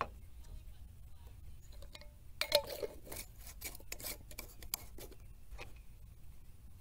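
A few light clicks and knocks from objects being handled on a wooden picnic table, a glass jar and a plastic PVA mesh tube among them. The loudest knock comes about two and a half seconds in, over a steady low rumble.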